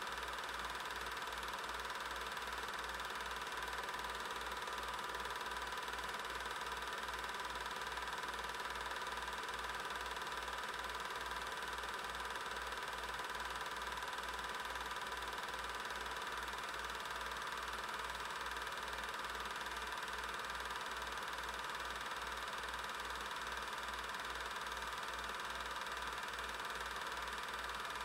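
8mm film projector running: a steady motor whir and hum with an even low throb about twice a second from the film transport.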